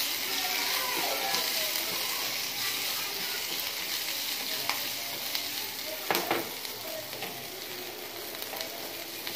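Onion and whole spices sizzling in hot oil in a steel kadai as a tempering (chhunk) fries, stirred and scraped with a spatula. The spatula knocks sharply against the pan once about six seconds in.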